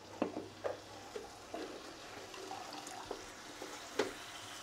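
Boiled banana flower being squeezed by hand and dropped in clumps into a kadai of masala: a few soft, wet squelches and drips at uneven intervals, the loudest about four seconds in.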